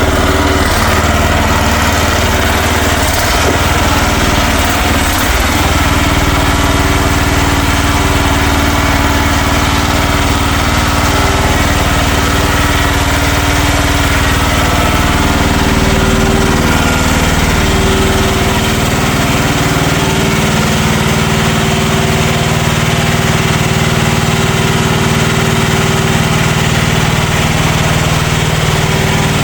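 Mini excavator engine running steadily. Its note shifts a little after about eighteen seconds as the machine works.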